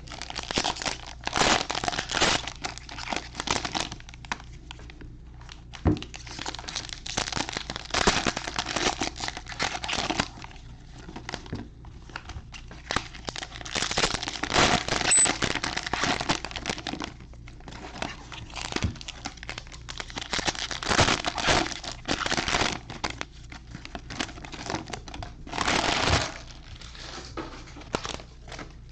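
Plastic packaging of a sealed box of 2020 Panini Absolute Football fat packs being torn open and crinkled by hand, in irregular bursts of a second or two with short pauses and a few sharp clicks.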